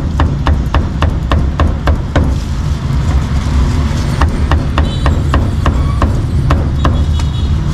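Meat cleaver chopping cooked meat on a thick round wooden chopping block: a quick run of about five strokes a second, a brief pause about two seconds in, then the chopping resumes with more spaced strokes.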